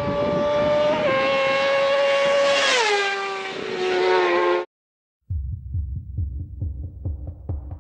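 A loud horn blast, sounding several tones at once, slides down in pitch about three seconds in and cuts off abruptly. After a moment of silence, a low thumping beat starts and speeds up, the opening of an electronic music track.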